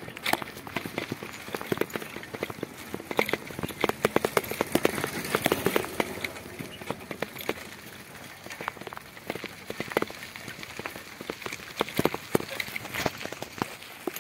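Bicycle ridden over a rough, gravelly road: a dense run of irregular rattles and crackles from the bike and its tyres, heaviest about four to six seconds in.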